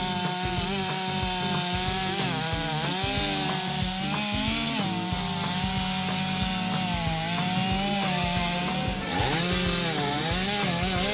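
Chainsaw running at high revs and cutting through wood. The engine note sags several times as the chain bites in, then picks back up.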